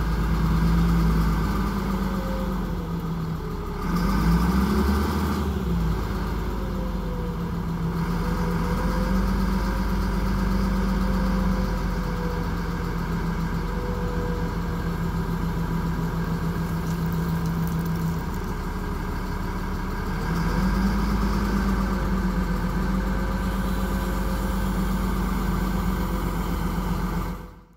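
Caterpillar 972G wheel loader's diesel engine running steadily at idle, its speed rising and falling briefly about four seconds in and again about twenty seconds in.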